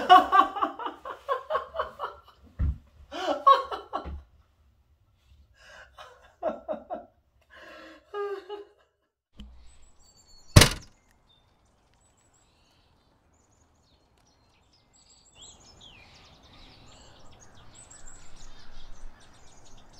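A man laughing and exclaiming excitedly, then a car's trunk lid slammed shut once about ten seconds in, the loudest sound, followed by birds chirping outdoors.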